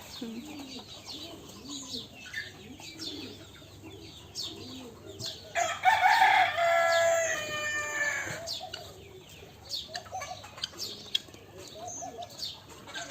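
Chickens clucking and chirping, with a rooster crowing once about six seconds in, lasting about two and a half seconds and the loudest sound.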